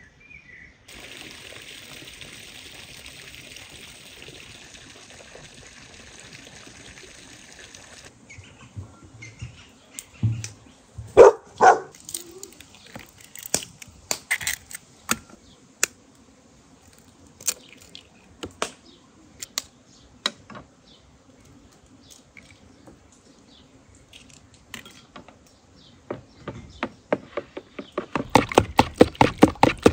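Eggs cracked one after another against a plastic mixing bowl: sharp clicks and knocks as the shells break. Near the end the eggs are beaten fast with a fork, a quick even clatter against the plastic. A steady high hiss fills the first several seconds.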